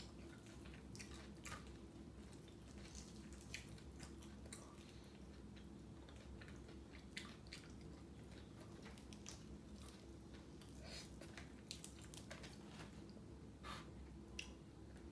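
Faint chewing and biting of a person eating fried chicken by hand: many small, scattered mouth clicks and smacks over a steady low hum.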